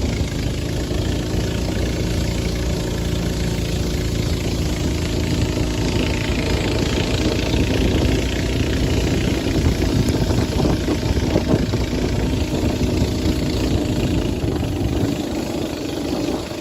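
Boat engine running steadily, with a steady rushing hiss alongside it.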